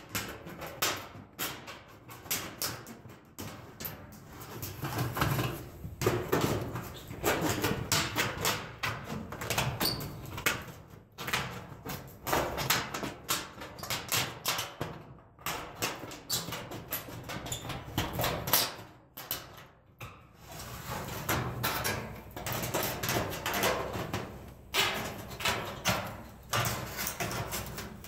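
Tin snips cutting across a corrugated metal roofing panel: a steady run of crunching snips through the sheet metal, with a couple of short pauses about halfway through.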